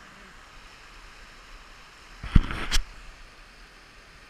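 Steady rush of a hill burn running over stones, with a sudden loud thump and short clatter a little over two seconds in.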